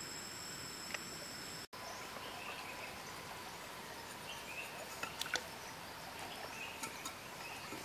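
Forest ambience: steady insect buzzing and a few short bird chirps over a low hiss, with a few sharp clicks around five seconds in. The sound drops out for an instant just under two seconds in.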